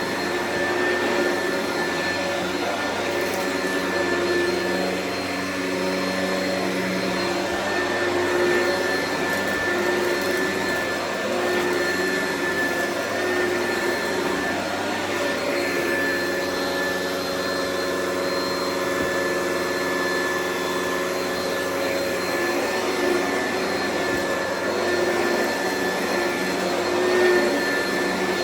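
Oreck upright vacuum cleaner running steadily, its motor giving a steady whine over a rushing hiss, the pitch wavering slightly as it is pushed and pulled over the floor.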